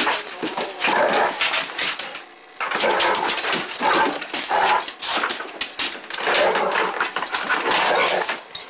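Dog making play noises while tussling over a basketball, in long noisy stretches with a short pause a little after two seconds.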